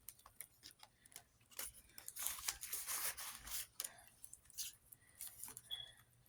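Paper banknotes and cash envelopes being handled: faint rustling and small clicks, with a denser stretch of rustling about two to four seconds in.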